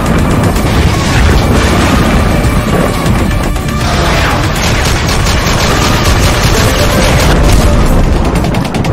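Loud intro music with heavy booms and rapid gunfire sound effects, the quick repeated shots plainest in the second half.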